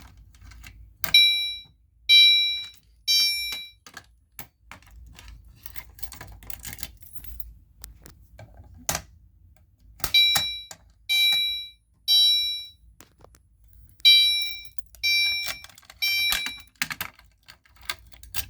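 Gentex Commander 3 horn strobe sounding its temporal code 3 chime pattern: three chime tones a second apart, then a pause, repeated three times, with a longer gap after the first group. Clicks and knocks from handling the fire alarm pull station fall between the groups.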